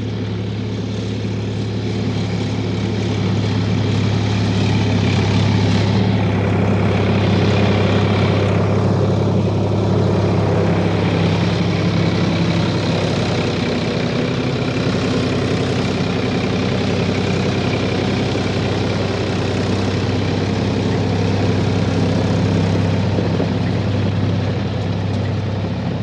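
Heavy engine running at a steady speed: a deep, even hum over a broad rumble.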